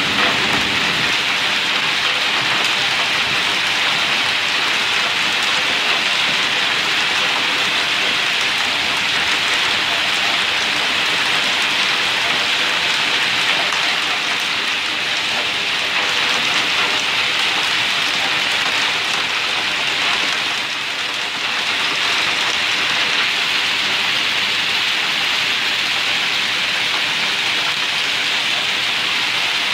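Small hailstones falling heavily onto pavement, a steady, dense patter of pellets striking the ground.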